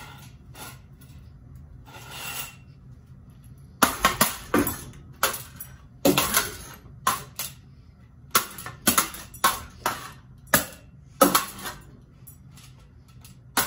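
Metal parts of a cheap ceiling fan being smashed: a string of about twenty sharp metallic bangs and clinks, starting about four seconds in after a few light clicks.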